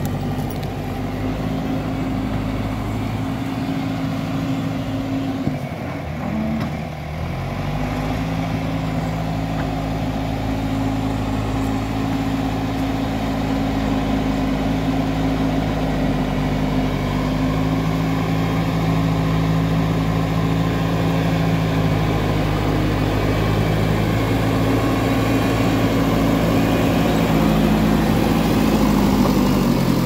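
JCB backhoe loader's diesel engine running steadily under load as the front bucket pushes loose soil. The engine note dips briefly about six to seven seconds in, then steadies again.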